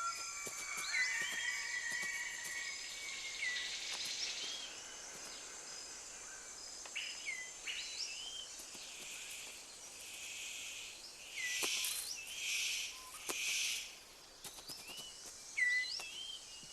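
Tropical forest ambience: many short rising bird whistles and chirps over a steady high insect drone, with three brief rushing noises a little past the middle.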